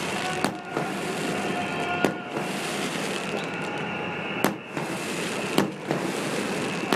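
Fireworks display: five sharp bangs of bursting shells, one to two seconds apart, over a continuous dense crackle and din.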